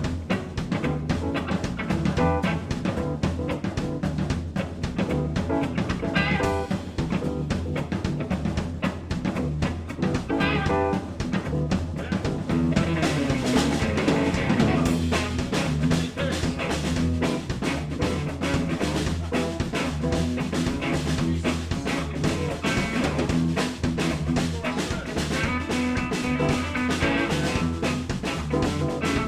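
Live blues band playing an instrumental passage with no vocals: drum kit keeping a steady groove under bass and electric guitar. The music grows fuller from about halfway through.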